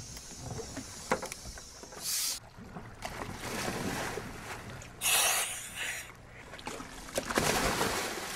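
Divers splashing into the sea off the stern of a dive boat: a short rush of water about two seconds in, a louder splash about five seconds in, then water churning near the end.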